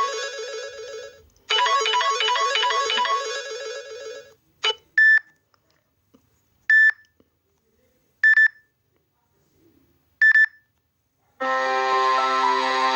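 Samsung Galaxy Tab A ringtones: a melodic ringtone of quick repeated notes plays its phrase and fades out about four seconds in. Four short single-pitch beeps follow, a second or two apart. Near the end a different ringtone with sustained notes starts.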